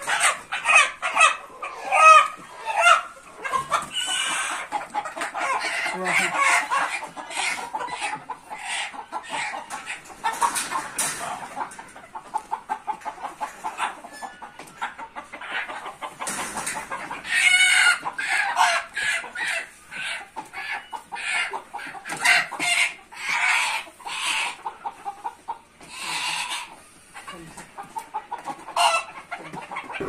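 Domestic chickens clucking and squawking in quick, repeated calls while they are handled in plastic crates, with a louder, drawn-out rooster call about 17 seconds in.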